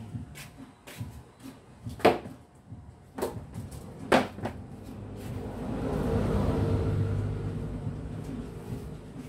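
Sharp knocks and clatter from tyres being handled and put down, the loudest about two and four seconds in. In the second half a low drone swells and fades over a few seconds.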